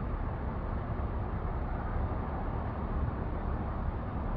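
Steady low rumble of the 1995 International 4800's six-cylinder diesel engine running at an even speed.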